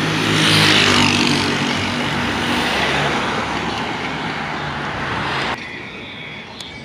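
Road traffic: a motor vehicle passing close by, engine hum and tyre noise loudest about a second in and easing off after. Near the end the sound drops suddenly to quieter background traffic.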